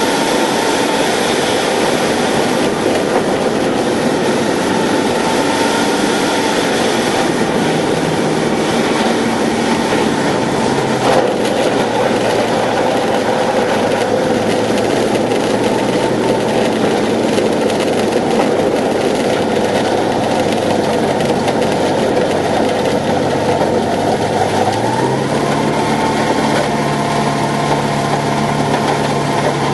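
Subaru car-engine conversion of a Zenair 701 light aircraft running at low power, heard from inside the cockpit as the plane rolls and taxis on a grass strip. The engine note steps down over the first half, rises for a few seconds about 25 seconds in, and drops again near the end.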